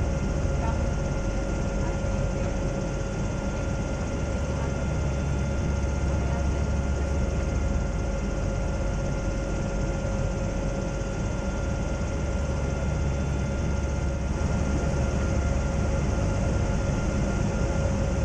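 Zeppelin NT airship's propeller engines heard from inside the passenger cabin: a steady, even drone, deep and heavy, with a constant hum tone riding over it.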